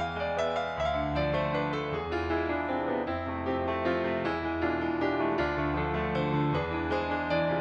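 Background music led by piano, with notes struck in a steady flowing pattern over a held bass that changes about once a second.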